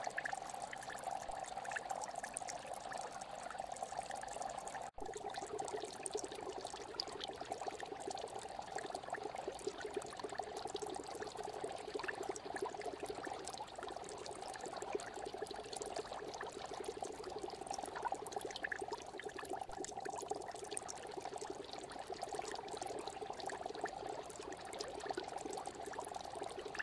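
Steady bubbling and splashing of aquarium water churned by an Aquael internal filter's outflow and air bubbles. About five seconds in there is a momentary break, after which the water sound is a little deeper.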